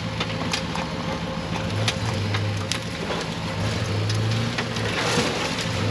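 Off-road vehicle engine running low and steady, swelling and easing as the rig crawls over rocks, with scattered clicks and crunches of rock under the tyres.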